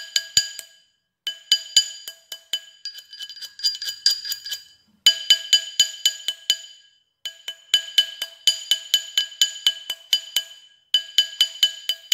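A small hammer strikes a brass ring band on a ring mandrel to round it. The blows come in quick runs of several a second, each a sharp metallic clink that rings on briefly, with short pauses between runs.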